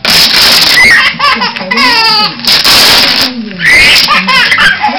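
Sticky tape ripped off a roll in three loud, noisy pulls of about a second each. Between the pulls comes a baby's high, bubbling laughter.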